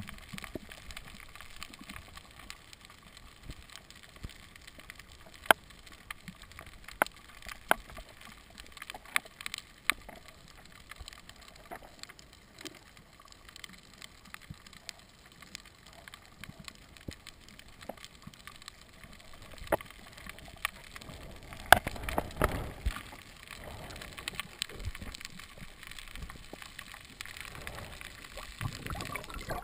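Underwater sound heard through an action-camera housing: a steady faint hiss with scattered sharp clicks, and a louder stretch of low rushing and bubbling water about three quarters of the way through.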